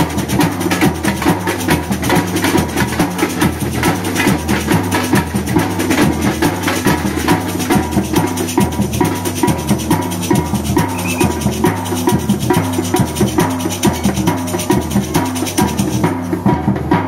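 Samba percussion band playing live: a surdo bass drum keeps a steady repeating beat under fast stick strikes on tamborims and other small hand-held percussion. The brightest, highest strikes thin out about a second before the end.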